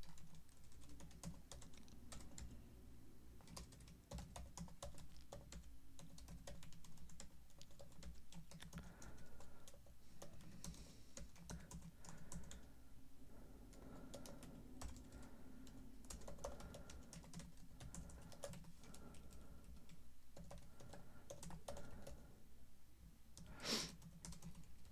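Typing on a computer keyboard: a fast, irregular run of faint keystrokes, with one louder key click near the end.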